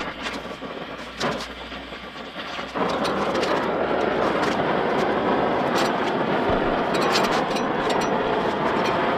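Steady rushing roar of a gas flame heating the steel, with scattered light clinks of metal; the roar grows louder about three seconds in.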